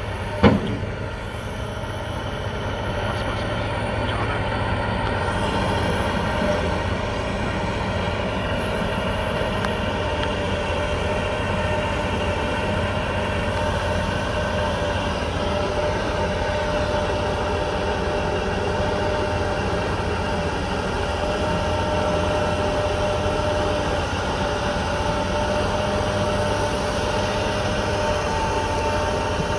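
Heavy diesel mining machinery, a BEML excavator loading BEML dump trucks, running steadily with a constant engine drone and a steady whine. A sharp knock about half a second in.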